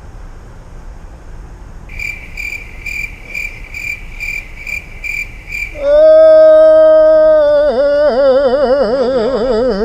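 Chirping crickets, probably an edited-in sound effect, pulsing about twice a second for a few seconds. It is followed by a much louder drawn-out pitched tone that holds steady, then wavers up and down.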